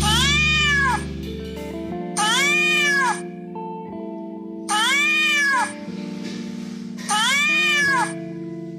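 Domestic cat meowing four times, each meow rising then falling in pitch, about two and a half seconds apart, over steady background music.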